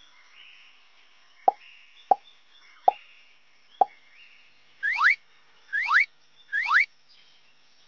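Four short, sharp plops less than a second apart, followed by three quick rising whistle-like sweeps.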